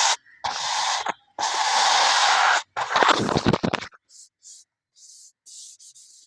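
Dry cement balls being crushed: three loud bursts of gritty crumbling, the third crackling, followed by faint short rustles of dust and fragments.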